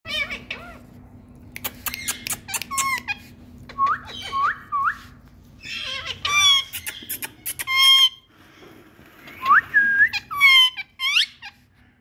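Ring-necked parakeets calling in short bursts: harsh squawks mixed with quick rising whistles.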